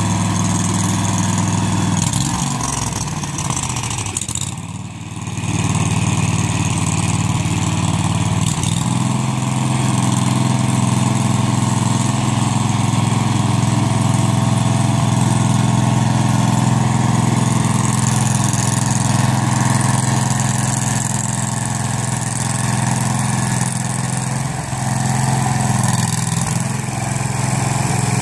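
Engine of a Rapid Spezial single-axle tractor running steadily as it pulls a loaded hay wagon. Its note dips briefly about four to five seconds in, then holds steady.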